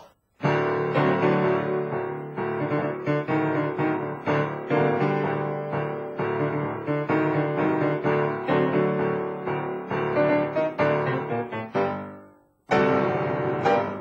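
Piano music: a grand piano plays a dense, chordal passage that breaks off near the end, then a short new phrase begins.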